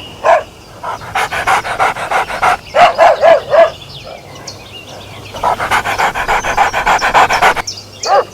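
A dog panting fast, about seven or eight breaths a second, in two long runs. Between the runs it gives four quick short barks.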